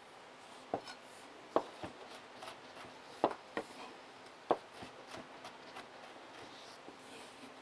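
Chef's knife chopping vegetables on a cutting board: a few sharp, unevenly spaced knocks of the blade on the board, with fainter taps in the last few seconds.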